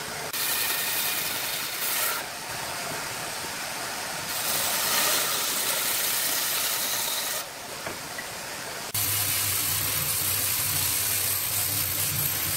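Bandsaw cutting through a wooden beam, the hiss of the blade in the wood swelling twice. About nine seconds in the sound switches to another woodworking machine's motor running with a steady hum.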